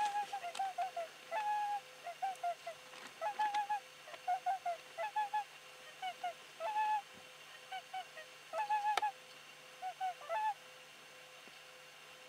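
Swans calling: short, clear calls in quick groups of two or three, repeated for about ten seconds and then stopping.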